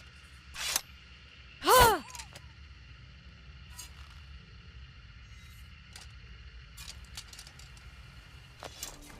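Katana sword sound effects: a short swish, then about a second later a loud metallic ring whose pitch bends as it fades, followed by a few faint clicks.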